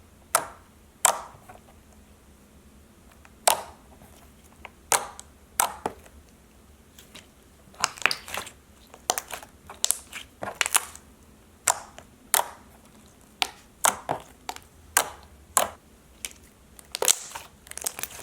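Slime being pressed and stretched by hand, making sharp, irregular pops and clicks. The pops are sparse at first and come faster from about halfway.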